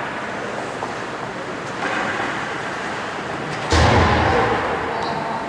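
Sounds of ice hockey play echoing through a near-empty indoor rink: a steady hiss of skates and the hall. About two-thirds of the way in comes a sudden loud bang from the play, which rings on through the hall.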